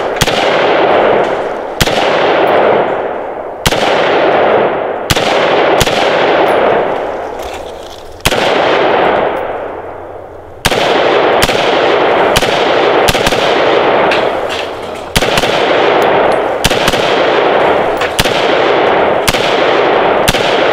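Standard Manufacturing Model A AR-15 firing 5.56 rounds semi-automatically: about fifteen sharp shots at an uneven pace, some in quick double taps, each trailing off in a long rumble.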